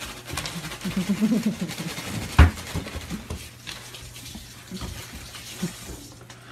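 A puppy pawing at a small object on a wooden floor: scattered light taps and one sharp knock about two and a half seconds in. A brief voice-like sound comes about a second in.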